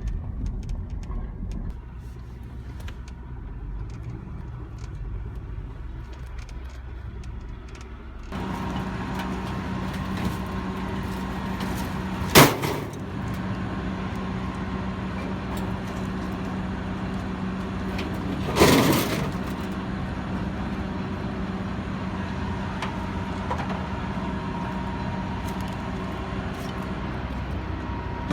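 A heavy vehicle engine running, a steady hum that sets in abruptly about eight seconds in, with two loud bangs about six seconds apart.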